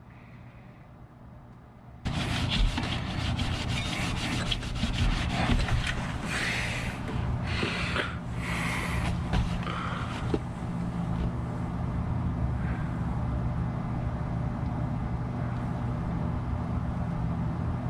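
Can-Am Maverick X3 engine starting about two seconds in and then idling steadily, with some uneven surges in its first several seconds, run after its oil change.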